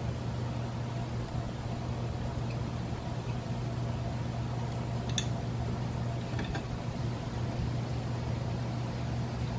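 A steady low hum, with two faint metallic clicks of a hand tool on a brush-cutter engine being taken apart, about five and six and a half seconds in.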